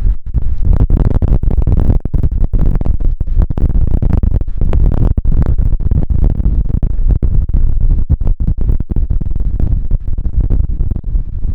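Strong wind buffeting the microphone: a loud, deep rumble with constant gusty flutter and brief dropouts.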